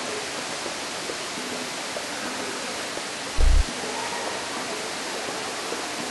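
Steady rush of water, with a short, loud low thump about three and a half seconds in.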